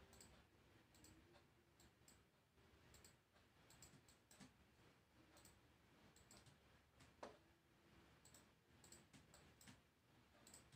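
Faint computer mouse clicks, irregular and about one or two a second, over near silence, with one slightly sharper click about seven seconds in.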